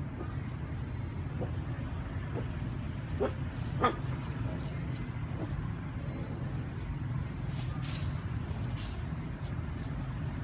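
A dog giving a few short yips during play, the loudest two close together about three to four seconds in, over a steady low hum.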